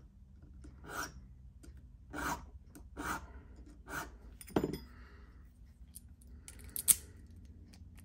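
Slow, uneven hand-file strokes on a brass key's cuts, about one scrape a second, with a sharper metallic click near the end. Hand finishing of the clipper-cut Schlage key, taking extra material off cuts that are not yet deep enough to turn the lock.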